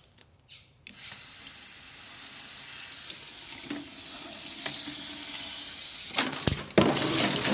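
Mains water rushing out of a washing machine's inlet hose into a bucket, starting about a second in as the tap is opened and running strong and steady, with a brief disturbance near the end. The strong flow is a water-pressure check, and it shows there is enough water pressure.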